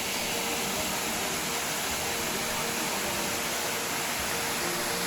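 Pir Ibrahim waterfall's falling water making a steady, even rushing hiss.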